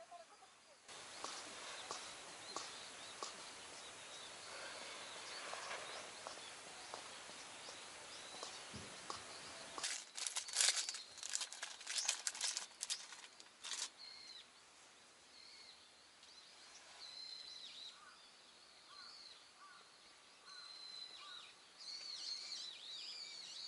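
Plastic snack wrapper crinkling loudly for a few seconds as it is torn open, then small birds chirping repeatedly over a faint outdoor hiss.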